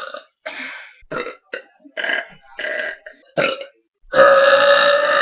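A girl burping: a run of short burps, then a long, loud belch that starts about four seconds in and holds a steady pitch.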